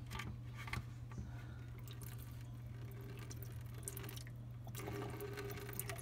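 A thin stream of standing water draining out of a clogged garbage disposal's loosened drain pipe and splashing into a plastic bucket, with scattered drips. Faint and steady, a little louder near the end.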